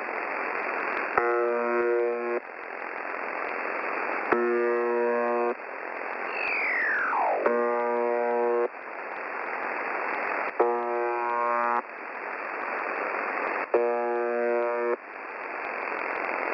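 Shortwave radio reception of UVB-76, 'The Buzzer': five harsh buzz tones, each a little over a second long and about three seconds apart, over steady radio hiss. A whistle glides down in pitch between the second and third buzz.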